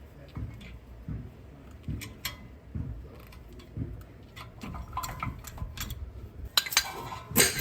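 Dull low knocks about once a second as a large C-clamp is worked on a truck's front disc brake caliper, then sharp metal clicks and clinks near the end.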